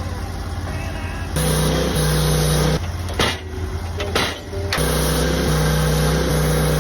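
Portable sawmill running: its engine hums steadily and goes louder and harder during two long stretches of sawing through Ponderosa pine, with a couple of sharp knocks in the pause between them.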